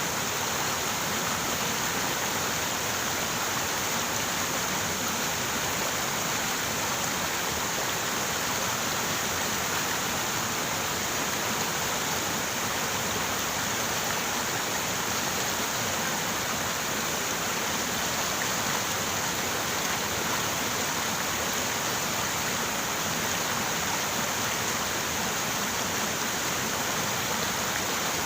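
River water running over rocks in a steady, even rush.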